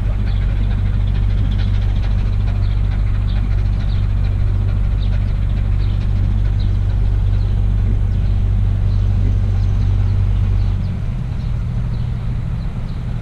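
A steady, low engine drone, as of an engine idling. About eleven seconds in it turns rougher and drops a little in level.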